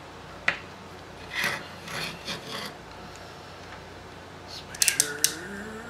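LCD monitor power-supply board being slid and turned around on a wooden workbench, scraping and rubbing against the wood, with a click about half a second in. A few sharp clicks follow near the end as the multimeter probes are handled.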